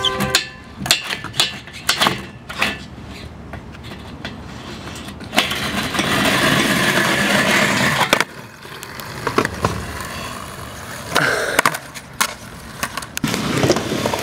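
Skateboard on a metal flat rail and concrete: a run of sharp clacks and knocks from the board and trucks, then a steady scraping rush lasting a few seconds in the middle as the board grinds and rolls. After that it is quieter rolling with a few more knocks, and the rolling grows louder again near the end.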